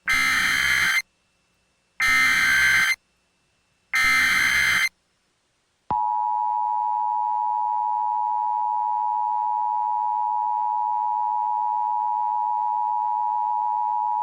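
Emergency Alert System signal. It begins with three bursts of warbling SAME header data, each about a second long and a second apart. About six seconds in, the two-tone attention signal starts: a steady, harsh chord of two close pitches held for about eight seconds, then cut off abruptly. This sequence announces an emergency alert about to be read.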